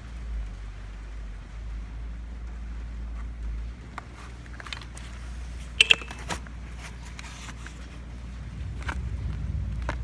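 Honda Benly Pro 50's air-cooled single-cylinder eSP four-stroke engine idling steadily, which the seller calls free of abnormal noise and in good order. Two sharp clicks come close together about six seconds in, with a few lighter clicks around them.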